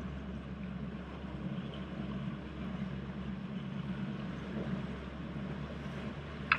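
Bass boat's outboard motor running steadily at low speed, a low even hum. A single short click near the end.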